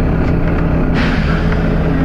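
Volvo B9TL double-decker bus's diesel engine running steadily, with a short burst of compressed-air hiss about a second in from the bus's air system.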